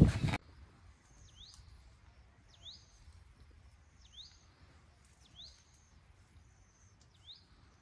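A small bird calling over and over, a short high call that dips and rises quickly in pitch, about every second and a half, over faint outdoor background noise. A brief loud noise at the very start cuts off abruptly.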